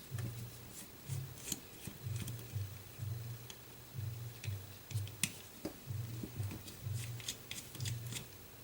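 Small, sharp metallic clicks and ticks at irregular intervals from handling a Benchmade OTF knife and small tools, over a quiet low pulse repeating about twice a second.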